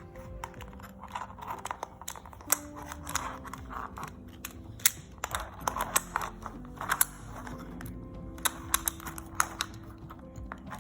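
U-Fidget toy pieces clicking as they are handled and snapped together: irregular sharp clicks, several louder ones in quick clusters, over soft background music.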